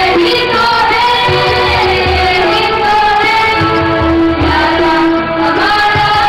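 A group of children singing a song together in unison, accompanied by a drum.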